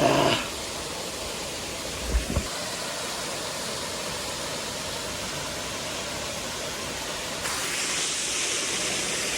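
Waterfall: a steady rushing hiss of falling water. There is a short low thump about two seconds in. The rush grows a little louder and brighter about three-quarters of the way through.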